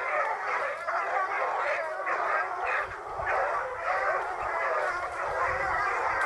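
Several young Gascon hounds baying and yelping together, many voices overlapping without a break.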